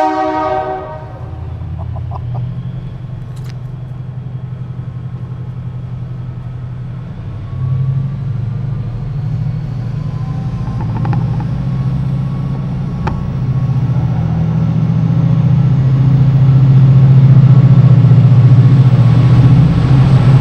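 TransPennine Express passenger train running slowly past along the platform, with a short horn blast at the very start. The low engine hum grows steadily louder as it draws near, and a faint whine rises slowly in pitch.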